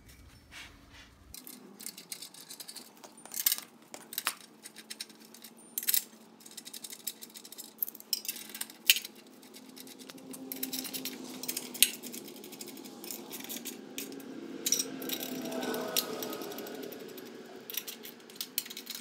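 Steel bolts, nuts and washers clinking and knocking against a steel truck frame and a new bushing mount as the hardware is fitted by hand. There are sharp metal clinks throughout, and a steadier scraping stretch in the second half.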